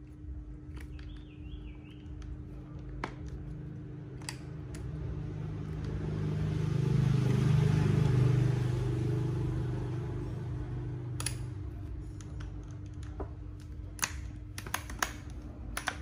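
A motor vehicle passing by, its engine and tyre noise swelling slowly to a peak about halfway through, then fading away. Scattered clicks and knocks of a corded drill and its plastic carry case being handled.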